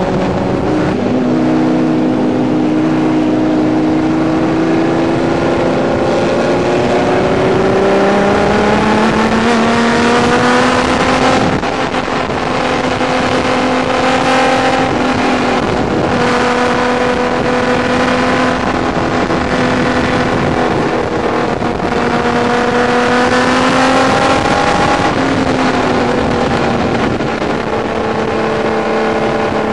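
Racing car engine heard from inside the open cockpit under load. Its pitch climbs steadily as the car accelerates, holds high and steady down the straight, then drops a little over the last few seconds as the driver eases off. A constant rush of wind and engine noise runs under it.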